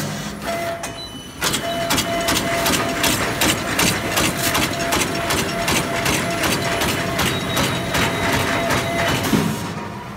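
Disposable polyethylene glove making machine running: a rapid, evenly repeating mechanical clatter with a steady tone underneath. It picks up louder about a second and a half in.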